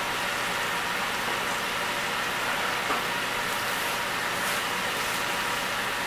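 Chicken and diced vegetables sizzling in a pot, a steady hiss, with a light tick about three seconds in.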